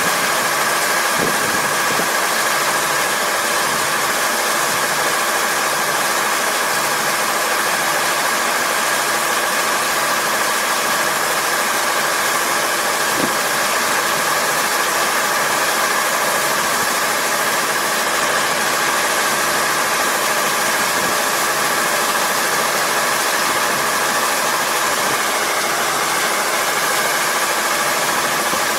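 Rice combine harvester running steadily at high engine speed with its grain unloading auger swung out, a constant machine drone with a steady whine and no change in pitch.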